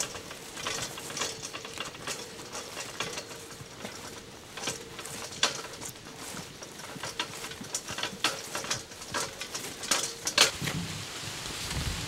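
Dry vegetation rustling and crackling underfoot as people walk, with irregular sharp crackles and snaps; the loudest snap comes about ten seconds in.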